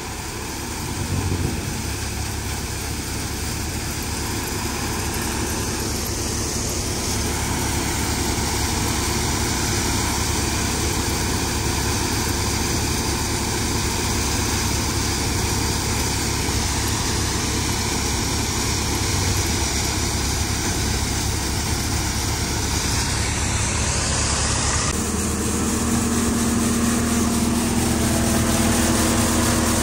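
Tractor-driven threshing machine running steadily under load as dry chickpea plants are fed in: the tractor engine and the thresher's drum and sieves make a dense, continuous mechanical noise. About 25 seconds in, the sound shifts to a steadier hum with a few held tones.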